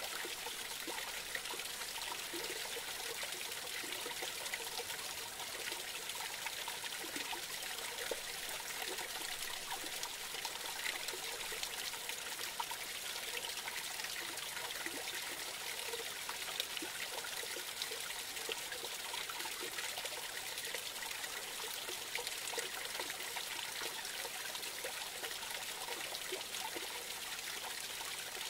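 Small forest creek trickling and splashing over a low drop under fallen logs: a steady babble of running water.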